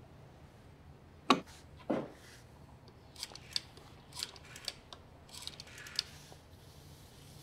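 An old black desk telephone: two sharp knocks as the handset is picked up, then runs of small clicks from its rotary dial as a number is dialled, between about three and six seconds in.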